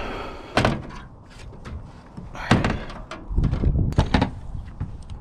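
A series of knocks and heavy thumps at irregular intervals, the heaviest cluster about three to four seconds in: someone climbing up onto a van's roof.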